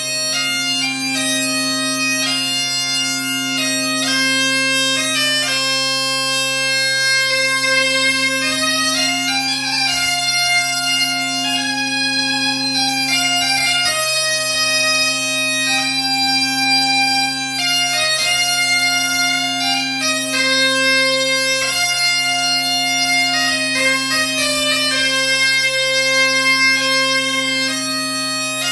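Biniou braz (Breton great bagpipe) and bombarde played together as a pair: a steady bagpipe drone under a shrill, reedy melody. Near the end the bombarde stops and the pipes carry on alone.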